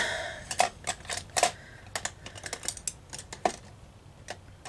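Irregular clicks and taps of makeup brushes and small plastic cases being picked up and moved about on a table while a different brush is searched for.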